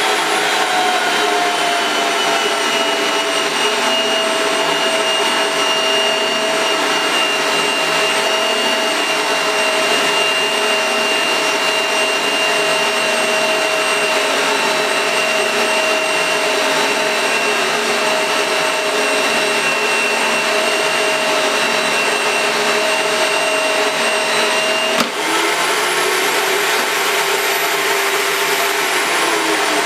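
Rothenberger Supertronic electric pipe threading machine running under load as its die head cuts a thread on a steel pipe, a steady motor whine. About 25 seconds in there is a click, and the whine climbs higher, then falls away near the end.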